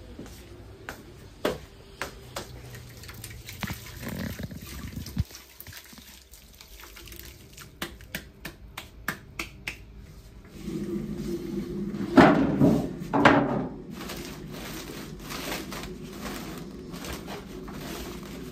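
Handling sounds from yeast, water and flour work in a big steel dough-mixer bowl: scattered clicks and knocks, then a steady low hum starting about ten seconds in, with two loud scraping rushes about a second apart soon after.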